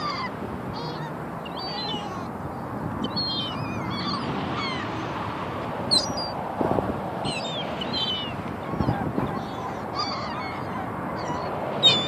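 A flock of gulls calling, many short, high cries that bend in pitch and overlap, over a steady background rush.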